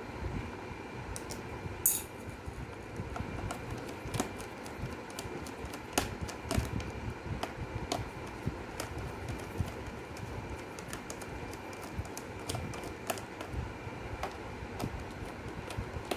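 Small screwdriver working the screws out of a laptop's plastic base panel: irregular light clicks and ticks of the bit and screws against the plastic case, with one louder click about two seconds in.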